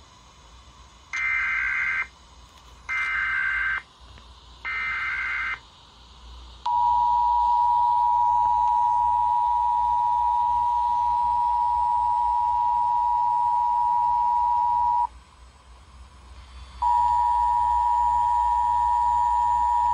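Emergency Alert System header: three short bursts of warbling data tones, each about a second long with a second's pause between them. The EAS two-tone attention signal then holds steady for about eight seconds. It breaks off, and about two seconds later the two-tone attention signal starts again, announcing a required monthly test.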